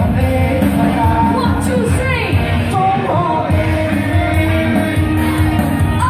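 Live band playing amplified rock-pop through a PA, with keyboard backing and a woman singing into a microphone, her voice sliding between notes.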